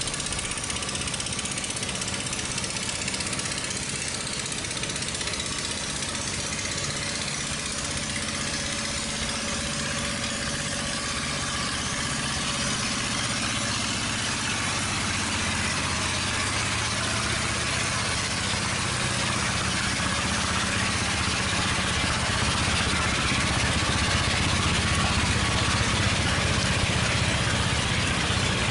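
Small boat engine running steadily, growing a little louder toward the end.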